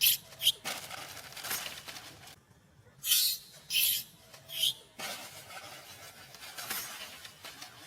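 Baby monkey giving a series of short, sharp, high-pitched squeals, about five in all, with quieter scuffling sounds in between.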